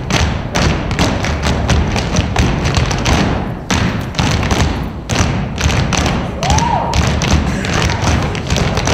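Dancers' feet stomping on a floor in a group dance: loud, fast, uneven thumps and taps, with music underneath.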